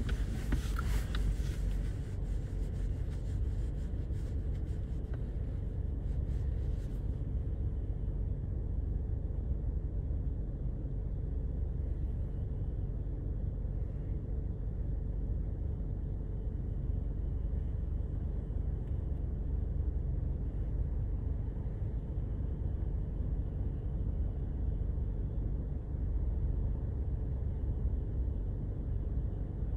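Car driving along a road: a steady low rumble of tyres and engine with a faint steady hum over it. A lighter hiss on top drops away about seven seconds in.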